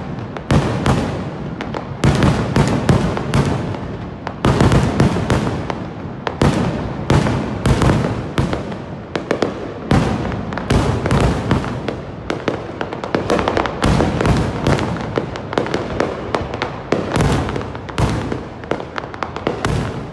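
Fireworks display: a dense barrage of rapid cracks and bangs going off without a break, swelling in louder waves every couple of seconds.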